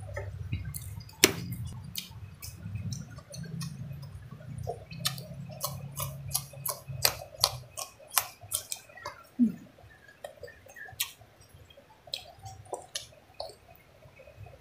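Close-up chewing and wet mouth sounds of someone eating rice and fish by hand: lip smacks and many sharp wet clicks, thickest in the middle, over a low hum that fades out about halfway through.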